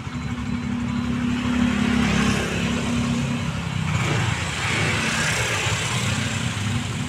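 Yamaha Xeon RC scooter's single-cylinder four-stroke engine running, its pitch dipping about three seconds in and picking up again near the end.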